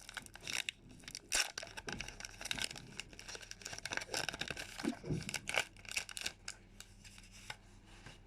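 Foil wrapper of a Pokémon Sword & Shield Rebel Clash booster pack being torn open and crinkled by hand: a run of irregular crackles and rips that thins out near the end.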